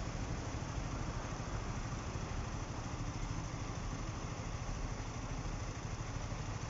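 Steady engine rumble with a continuous hiss of noise, holding level throughout.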